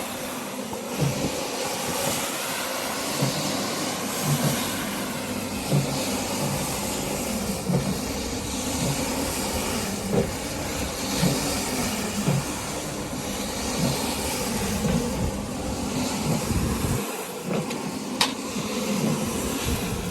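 Rug cleaning machine running steadily with a hiss, and a low thump about once a second.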